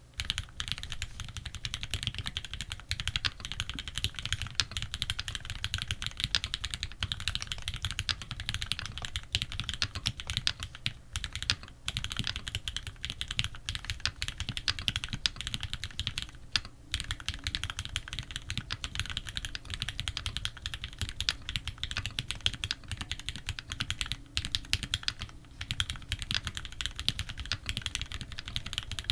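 Continuous fast typing on a Tx65 custom mechanical keyboard with lubed Retooled Black linear switches in a brass plate and GMK keycaps. Dense keystrokes with brief pauses, one about twelve seconds in and another just past halfway.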